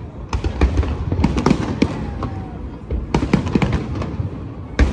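Aerial fireworks shells bursting in rapid clusters of sharp bangs and crackles, a group every second or so, with one loud bang near the end.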